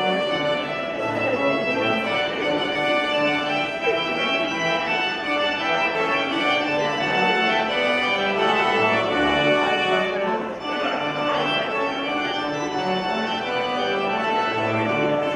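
Instrumental music led by organ, playing held chords with a melody moving over them.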